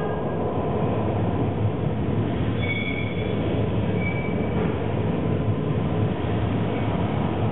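A video installation's soundtrack playing into the room: a steady, dense low rumble with no breaks, with a couple of faint brief high tones about three and four seconds in.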